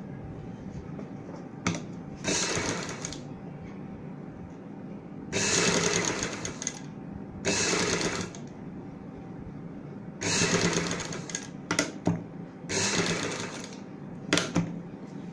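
Black straight-stitch sewing machine stitching in about five short runs of half a second to a second and a half, with pauses and a few sharp clicks between them. It is topstitching a folded binding strip along a neckline.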